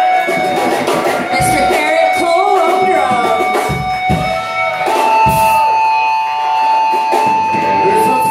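Live rock band playing: electric guitars, bass guitar and drums, with a long held high guitar note coming in about five seconds in.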